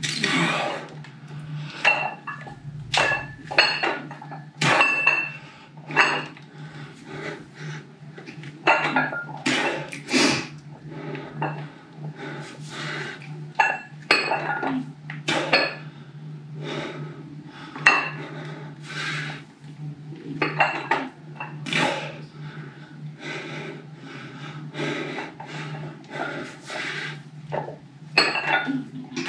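Metal weight plates on a single dumbbell clinking and rattling as it is swung up and lowered in repeated reps: irregular clanks about once or twice a second, some ringing briefly. A steady low hum sits underneath.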